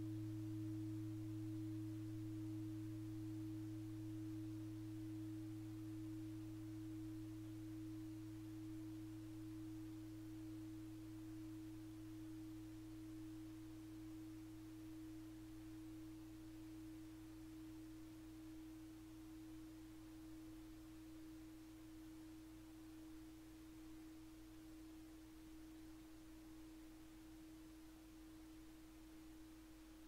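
Tibetan bell tone tuned to 'Venus', ringing out as steady pure tones, one low and one higher, faint and slowly fading.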